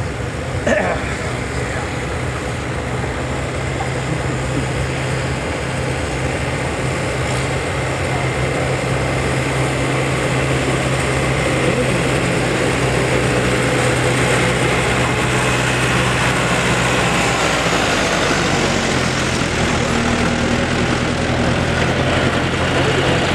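Farm tractor engines running steadily as a tractor tows the weighted pulling sled back up the track, the sound slowly growing louder as it comes closer.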